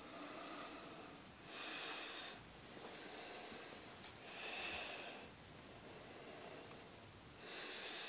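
A person breathing heavily through the nose close to the microphone, three soft hissing breaths about three seconds apart.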